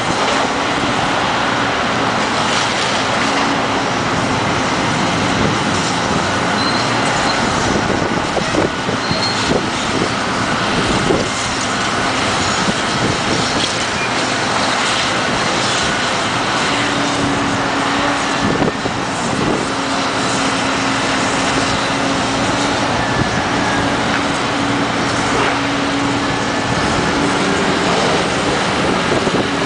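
Hydraulic excavator demolishing a brick building: its diesel engine runs steadily under load, with a few sharp knocks and crashes of masonry and debris as the bucket tears at the wall. A steady hum sets in partway through and rises in pitch near the end as the machine works harder.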